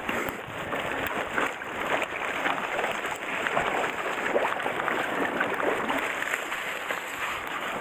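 Shallow stream water rushing and splashing close by, with sloshing and rustling as a dip net and a gloved hand are worked through the grass at the bank's edge.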